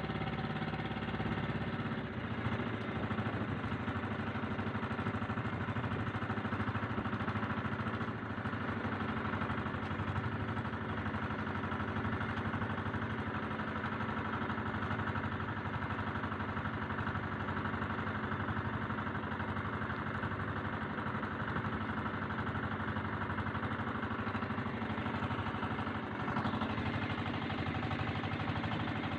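Outrigger boat's engine running steadily under way, with water rushing along the hull and outriggers.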